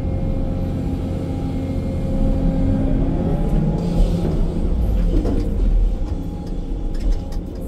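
Excavator's diesel engine and hydraulics working under load, heard from inside the operator's cab as the loaded bucket is swung over to a dump truck. A steady deep rumble with a faint whine, briefly louder about four seconds in.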